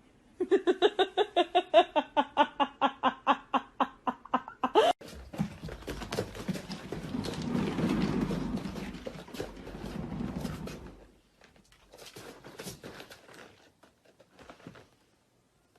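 An animal calling in a fast run of short pitched calls, about five a second, for some four seconds. Then comes a stretch of lower scuffling noise.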